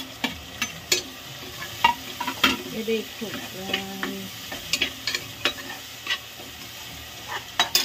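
Steel spoon stirring onions, tomatoes and green chillies frying in oil in a pressure cooker: irregular clinks and scrapes of the spoon against the metal pot over a steady sizzle.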